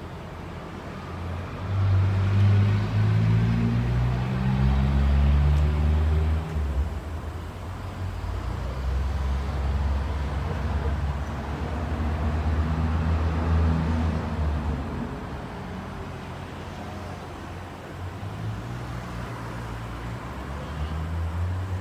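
Street traffic: engines of vehicles driving past swell and fade with a low, slightly gliding hum. The loudest pass comes about two seconds in and lasts several seconds, a second follows from about eight to fifteen seconds, and a weaker one comes near the end.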